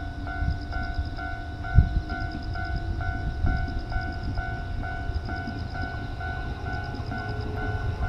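Japanese level-crossing electronic warning bell ringing, a steady two-tone ding about twice a second, over a low rumbling background noise with one thump about two seconds in.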